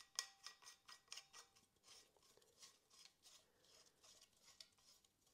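Faint, irregular metallic clicking and light scraping as a threaded headset cup is screwed by hand onto the threaded steerer tube of a bicycle fork.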